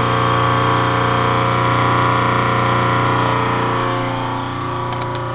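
A watermaker's AC electric motor drives a stainless steel Cat high-pressure pump, running with a steady, unchanging hum. A few light clicks come near the end.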